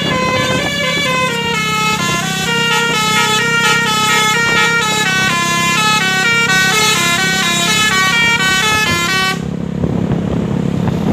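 Bus telolet horn, a multi-tone musical air horn, playing a fast winding melody of stepped notes that stops abruptly about nine seconds in, leaving a low steady hum.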